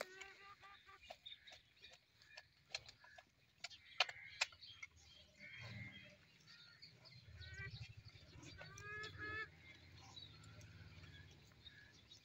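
Faint farmyard animal calls: a run of short pitched calls at the start and two more bursts of rising calls around the middle, with a couple of sharp knocks in between and a low rumble through the second half.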